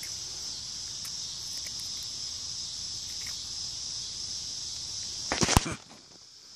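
Steady high-pitched trilling of an insect chorus. A little over five seconds in, a short loud burst of rustling and handling noise comes as the phone swings through leaves, and then the sound drops away, muffled, for a moment.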